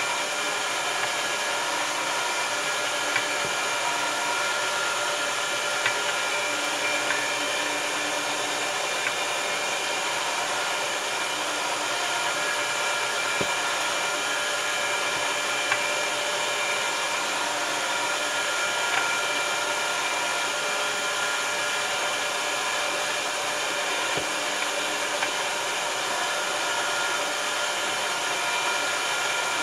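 Electric meat grinder's motor running steadily under load, a continuous whine, as it pushes sausage meat through the stuffing tube into the casing. A few faint ticks come through now and then.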